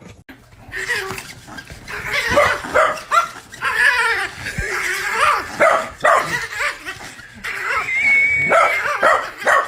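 Yorkshire terrier yipping and barking over and over while it plays with a person's hand.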